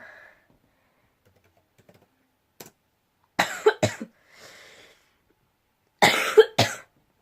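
A woman coughing while ill: two sharp coughs about three and a half seconds in, a breath, then two more coughs about six seconds in.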